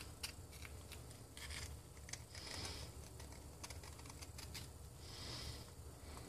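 Faint handling noise: scattered light clicks and taps, with a few soft breaths about two and a half seconds apart.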